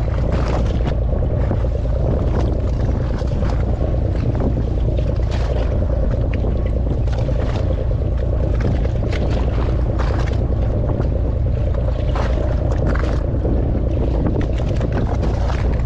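Fishing boat's engine running steadily under a constant rush of wind on the microphone, with irregular splashes of small waves against the hull.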